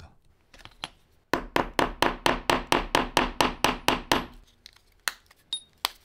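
A fast, even run of about twenty sharp, hard taps, around seven a second, lasting about three seconds, each with a brief metallic ring. A few single clicks and a short high ping follow near the end.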